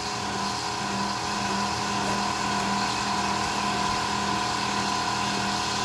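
Countertop blender running steadily, churning a thick cauliflower batter.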